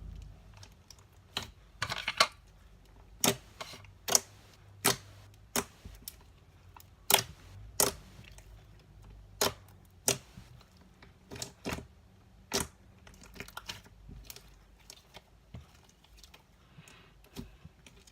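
Slime being squished and folded by hand, giving sharp popping clicks at an irregular pace of about one a second, with a short crackly run about two seconds in.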